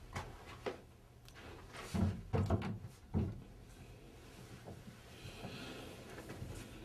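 A few dull thumps and knocks about two to three seconds in, from people moving and bumping against a cloth-draped table as a woman is lowered onto it. A soft hiss follows near the end.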